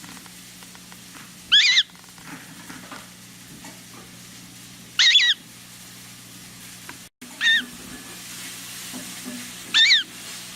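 Newly hatched gull chick peeping: four short, high, loud calls, a few seconds apart, over a faint steady hum.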